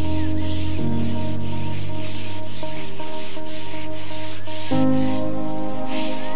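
Background music with sustained chords that change about a second in and again near the end, overlaid by a steady rasping, shaker-like pattern of about three strokes a second.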